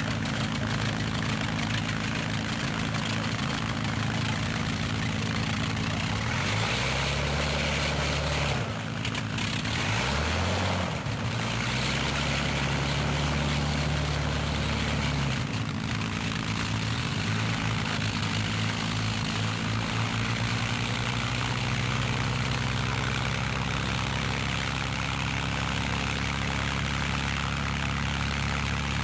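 Hawker Hurricane's Rolls-Royce Merlin V12 engine running on the ground, propeller turning. The engine note rises twice, about seven and twelve seconds in, then settles back to a steady lower run.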